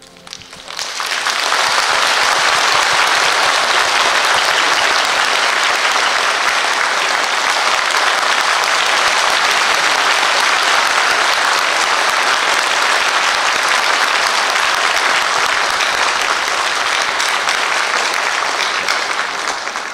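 Concert audience applauding, swelling in about a second in as the music ends, holding steady, and beginning to fade near the end.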